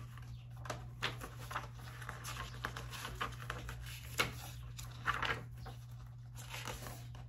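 Scattered soft rustles and light taps of paper as the pages of a cross-stitch pattern booklet are handled and turned, over a low steady hum.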